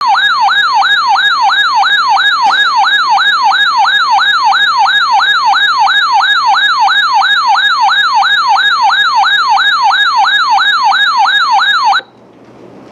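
Electronic yelp siren, a loud wailing pitch sweeping rapidly up and down about two and a half times a second, cutting off abruptly near the end. It serves as the alert sound ahead of a severe thunderstorm warning.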